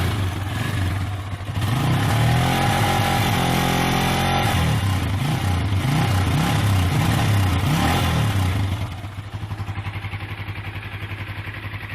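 MRT 200cc motorcycle engine and exhaust revved up and down several times, its pitch rising and falling, then dropping back to a steady idle about three-quarters of the way in.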